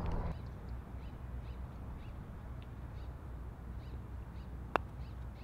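Birds calling in the background, a short high chirp repeated about twice a second over low steady outdoor noise. A single sharp click sounds near the end.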